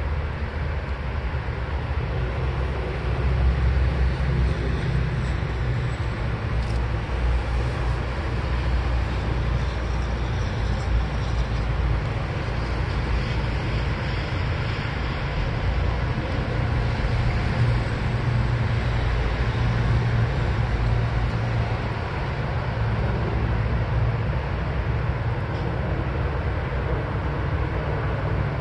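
Steady low outdoor rumble with no distinct events, loudest in the bass.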